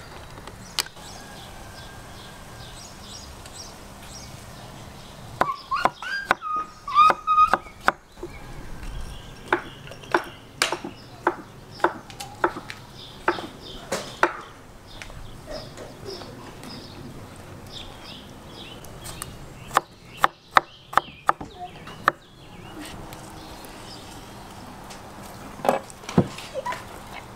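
Knife chopping pickled cucumbers on a wooden cutting board: runs of sharp strikes, the longest a fairly even series of about two a second, with scattered knocks and clinks between.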